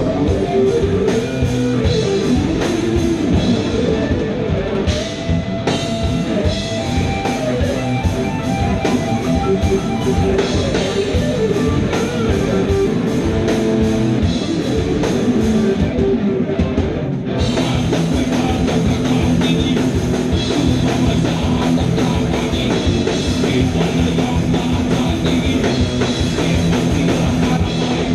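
Live rock band playing: electric guitars, bass guitar and drum kit. The high cymbal sound drops out for about a second two-thirds of the way through, then the full band comes back in.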